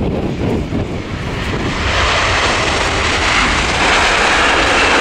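Boeing 787-9 airliner's jet engines during the landing rollout just after touchdown: a continuous rushing jet noise that grows louder and hissier about two seconds in.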